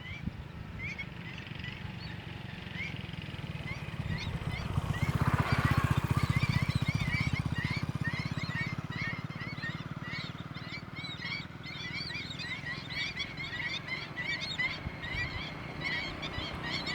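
A flock of gulls calling: many short rising calls overlapping, growing busier after the first several seconds, over a low steady rumble that swells about five seconds in.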